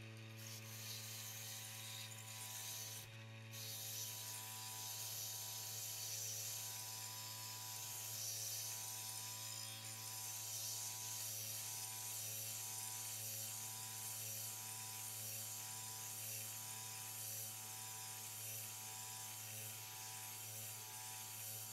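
Mini lathe's small electric motor running with a steady hum while 80-grit sandpaper is held against the spinning wooden dowel, giving a continuous sanding hiss as the yardarm is tapered down.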